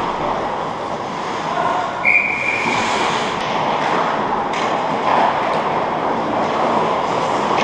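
Ice hockey rink during play, heard from the goal: a steady rushing noise of skates and arena background with faint distant shouts. About two seconds in, a single steady high tone lasts about a second.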